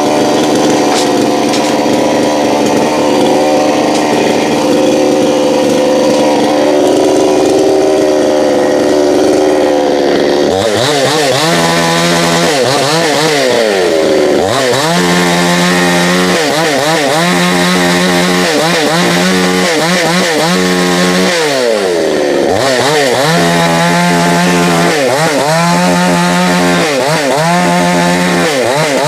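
Two-stroke chainsaw running hard while cutting wood. Its engine pitch dips sharply and recovers twice as the saw is loaded in the cut.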